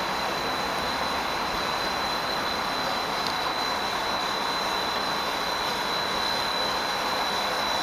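Steady running noise of a train, an even rumble and hiss with a thin, steady high-pitched whine over it.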